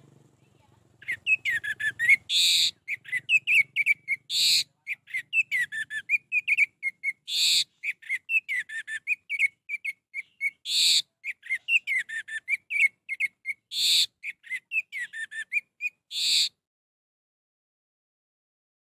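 Orange-headed thrush (anis merah) singing: a fast, varied run of whistled notes and trills, broken every few seconds by a louder, harsh note. The song begins about a second in and stops abruptly near the end.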